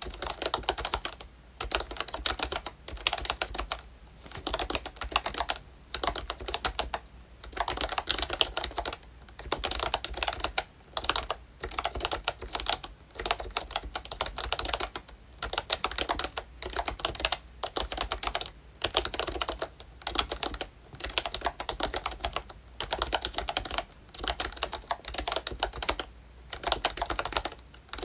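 Typing on a ROYCHE Disney Mickey Mouse retro membrane keyboard with round typewriter-style keycaps: quick runs of dense key clicks, each about a second long, broken by short pauses.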